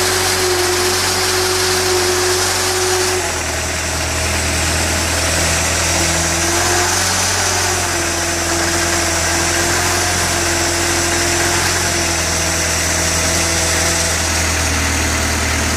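Homemade articulated tractor's engine running steadily at low speed, with a steady whine riding over it. About three seconds in, the low hum grows stronger as the tractor creeps forward.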